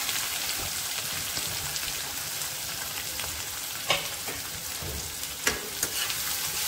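Sliced onions sizzling steadily in hot mustard oil in an aluminium kadhai. A few sharp knocks come in the second half as a metal spatula begins stirring them against the pan.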